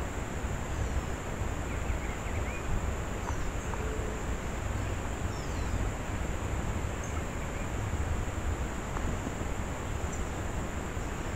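Outdoor ambience with wind rumbling on the microphone and a steady high-pitched tone, with a few faint, short bird chirps and falling whistles now and then.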